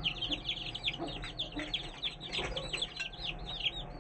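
A brood of week-old chicks peeping constantly: a dense stream of short, high cheeps, each sliding downward, several a second and overlapping.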